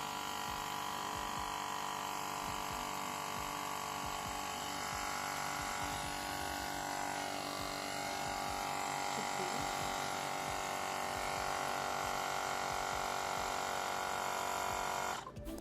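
Xiaomi Mijia Air Pump 2 portable electric compressor running steadily as it inflates a soccer ball, a continuous motor buzz that stops abruptly near the end.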